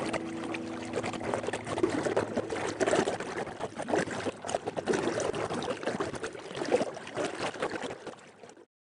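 River water running and burbling in an irregular, splashy stream, fading down and cutting off about eight and a half seconds in.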